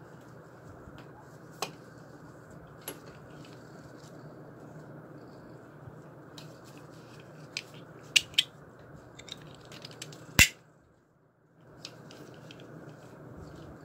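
A dog collar being handled: scattered sharp clicks and taps from its plastic side-release buckle and metal D-ring, two close together about eight seconds in and the loudest about ten seconds in, over a steady low background hiss.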